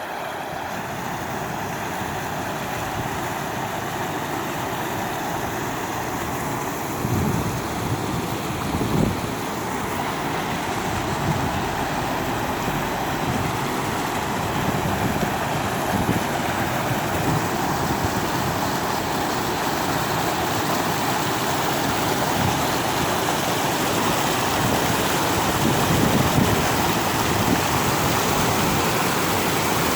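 Rushing river water, running high and strong after heavy rain: a steady rushing noise that grows slowly louder, with a few brief low thuds.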